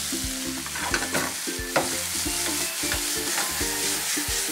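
Fillet steaks sizzling hard in a hot frying pan on a gas burner as they are flambéed, with a couple of sharp knocks about one and nearly two seconds in.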